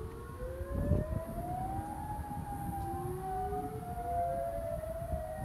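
Outdoor tornado warning sirens wailing, several at once, each slowly rising and falling in pitch so that their tones cross and overlap.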